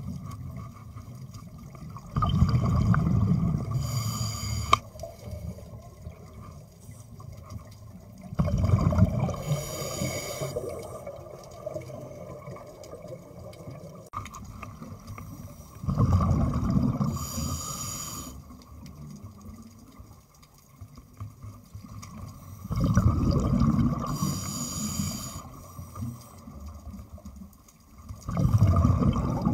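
Scuba diver breathing through a regulator underwater: five breaths about every six to seven seconds, each a loud rush of air and exhaled bubbles that fades, followed by a brief fizzing of bubbles.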